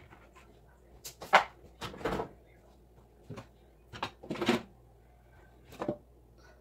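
Cookware handled on the stove: five short knocks and scrapes spread over several seconds, the loudest about a second and a half in.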